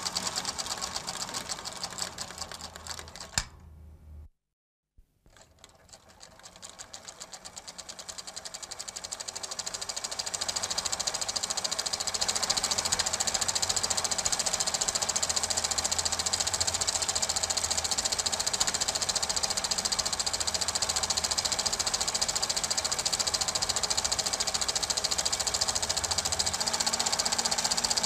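Film projector running with a rapid, even mechanical clatter. It cuts out briefly about four seconds in, then builds back up over several seconds to a steady clatter.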